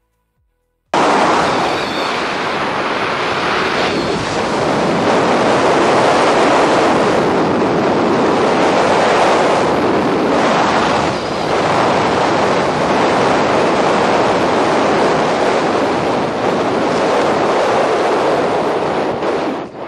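Loud wind roar buffeting a camera microphone, the rush of air typical of a skydiving freefall. It starts abruptly about a second in, swells and dips slightly, and cuts off just before the end.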